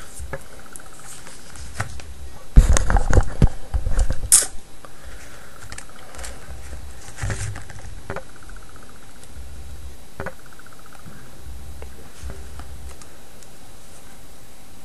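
Handling noise from small phone parts being worked on a bench. A loud burst of knocks and rustling lasts about two seconds, then a few faint, widely spaced clicks follow.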